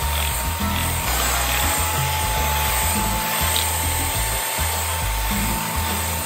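Electric hand mixer running steadily, its beaters whirring through a thick cream mixture in a stainless steel bowl, with a constant high motor whine. Background music plays underneath.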